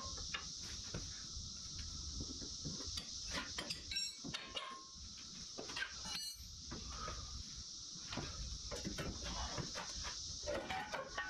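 Cicadas droning steadily in the background, with scattered metallic clinks and knocks of wrenches being picked up and handled on a concrete floor.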